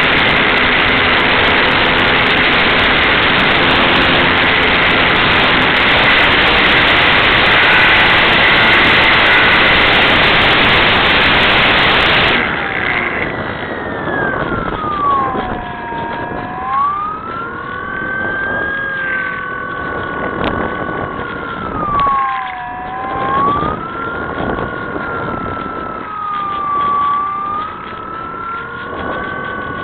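Heavy wind noise on the microphone. About twelve seconds in it gives way abruptly to the whine of a Skyartec Cessna 182 RC model plane's electric motor, which glides up and down in pitch several times as the plane flies.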